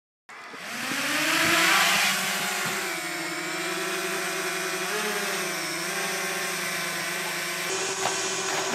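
Small quadcopter drone flying close by: its propellers give a steady whirring hum with a hiss over it. It is loudest about two seconds in, then settles, the pitch wavering slightly as it hovers.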